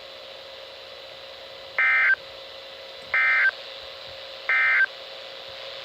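Three short bursts of Emergency Alert System SAME digital data tones, about a second apart, over a faint steady hiss and hum: the end-of-message code that closes a flash flood warning broadcast.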